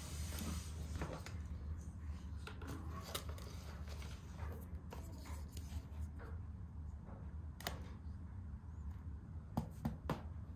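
Handling of a toy katana made of cereal-box cardboard and Lego: scattered light taps and clicks as it is picked up, turned and slid into its cardboard scabbard. A few sharper clicks come near the end.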